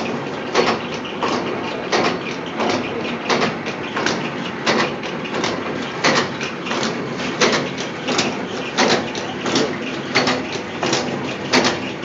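A filter-media pleating machine at work, its blade knocking with each fold at an even pace of about three strokes every two seconds, over a steady machine running noise.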